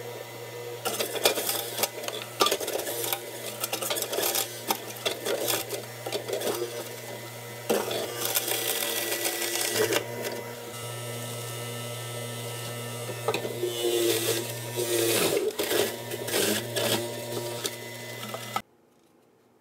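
Electric juicer running: a steady motor hum with loud, irregular grinding bursts as produce is pushed down the feed chute. It cuts off suddenly near the end.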